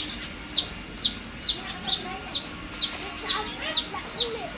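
A bird calling steadily: a short, high, falling note repeated evenly a little over twice a second, with fainter, lower calls in the middle.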